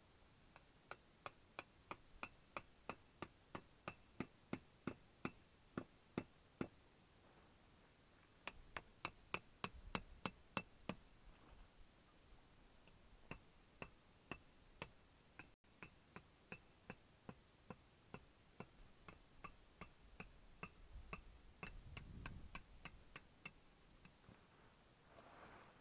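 Faint, sharp metallic ticks from a small steel wood stove, coming about three a second in runs with short pauses, as the stove's metal expands or contracts with the heat. A couple of soft low thumps come from movement on the tent floor, one around the middle and one near the end.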